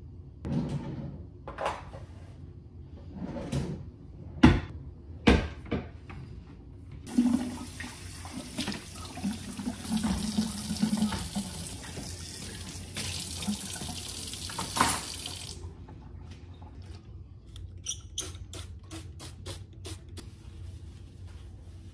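Dishes knocking and clinking as they are put away, then a kitchen tap running into a steel sink for about eight seconds while a dish is washed, with clunks of dishware under the stream. Near the end, a quick run of light ticks.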